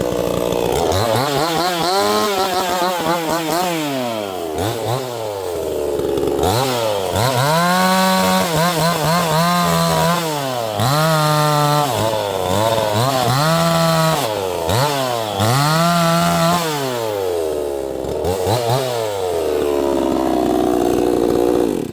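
68cc two-stroke chainsaw engine revving up to full throttle and dropping back to idle again and again, holding high revs for a second or more each time. It cuts off abruptly near the end.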